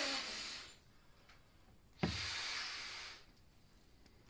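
A person blowing hard by mouth into an inflatable sleeping pad: the end of one long breath, then another long rushing blow about two seconds in.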